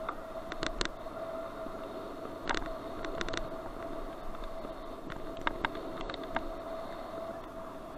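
Bicycle ride heard from a helmet-mounted action camera: a steady rush of wind and tyres on a wet paved path, with a faint steady whine. Several sharp clicks and knocks as the taped-on camera mount is jolted over bumps, the loudest about two and a half and five and a half seconds in.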